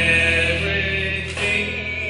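Small gospel vocal group singing live, several voices holding long notes together over a steady low backing tone.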